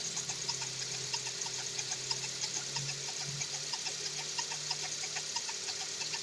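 Volkswagen Gol G6 engine idling with a steady hum and a quick, irregular ticking from the timing-belt area. The owner puts the noise down to the timing belt or a pulley; it started after the timing belt was replaced.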